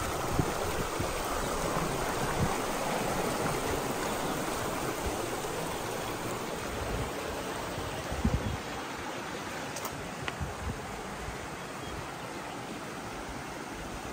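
Shallow stream running over rocks: a steady rushing of water that slowly grows fainter. A few light knocks come about two-thirds of the way through.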